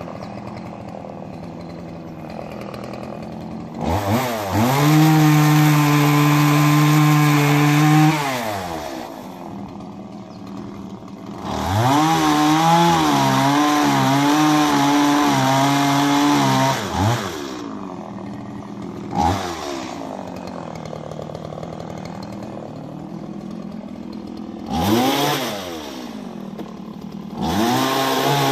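Small MS170 two-stroke chainsaw idling between bursts of throttle. It revs up to a steady high note for about four seconds, drops back to idle, then runs at full throttle again for about five seconds with its pitch wavering under load as it cuts into a log. A short blip and two brief revs follow near the end.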